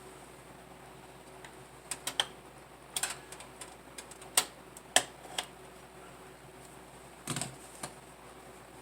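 Irregular sharp clicks and taps, a dozen or so spread over about six seconds, from computer peripherals being handled and set up by hand.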